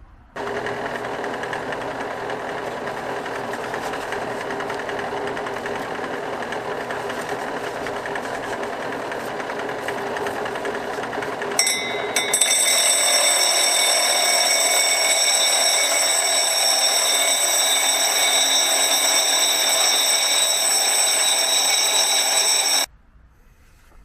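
Vevor drill press spinning a diamond polishing pad, running steadily. About halfway through it gets louder and a high-pitched whine joins it. It cuts off suddenly near the end.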